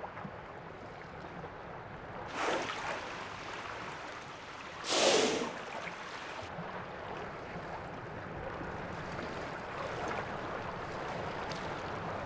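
Open sea water washing and lapping steadily, with two louder rushing bursts about two and a half and five seconds in.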